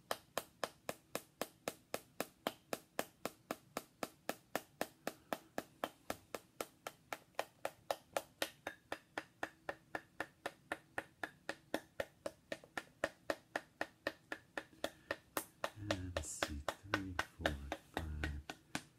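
Rapid, even tapping of a metal rod against a small hard figurine, about four sharp taps a second, to work acupuncture points.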